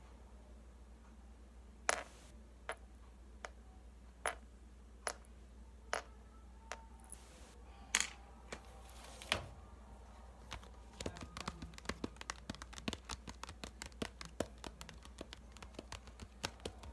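Sharp clicks and taps from hands handling things close to the microphone: single clicks about a second apart at first, then a fast, dense run of small clicks through the second half.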